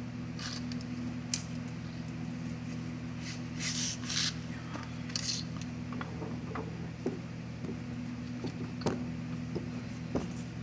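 Light metallic clinks and short scrapes as the front wheel hub bearing assembly is handled and worked back over the greased axle splines, over a steady low hum.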